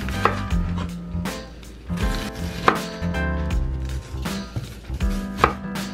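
Kitchen knife slicing a whole onion into rings on a wooden cutting board: a series of separate cuts, roughly one a second, each ending in a knock of the blade on the board. Background music plays underneath.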